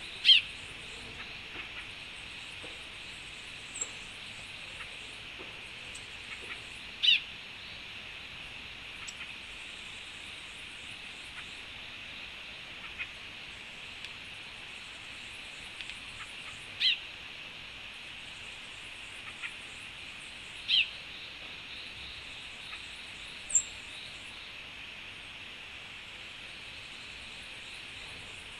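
Wild birds calling at a tropical forest feeder: a loud, short call sliding downward in pitch, heard four times several seconds apart, with faint high trills between, over a steady high hiss.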